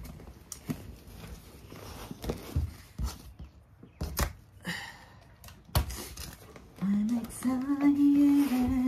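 Rustling and scattered soft knocks as the deflated Intex Dura-Beam airbed's fabric is handled and spread out. Near the end a woman's voice holds a long drawn-out note for about two seconds, louder than the handling.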